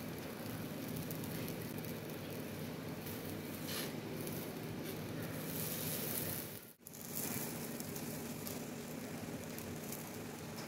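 Sweet paratha frying in ghee on a non-stick tawa, a steady sizzle that breaks off briefly about seven seconds in.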